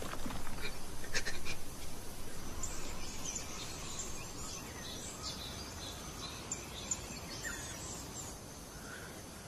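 Forest ambience: many short, high bird chirps and insect calls over a steady low background hum, with a few brief clicks about a second in.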